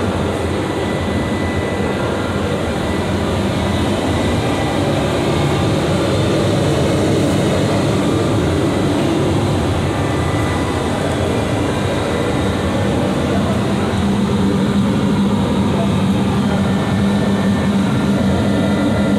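Loud, steady engine-room machinery noise: a dense drone with steady humming and whining tones from running plant machinery, not from the opened-up engine, which is stripped down and cannot run.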